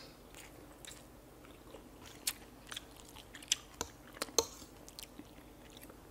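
Close-up chewing of instant noodles by people eating: irregular soft mouth clicks and smacks, with a few sharper ones between about two and four and a half seconds in.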